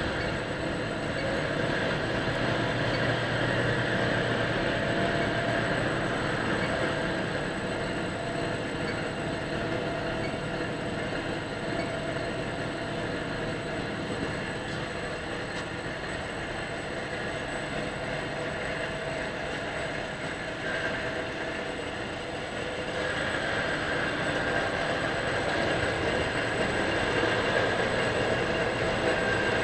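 Steady running noise of a PU sole moulding machine with its rotary conveyor, with several steady hums and whines, growing a little louder over the last few seconds.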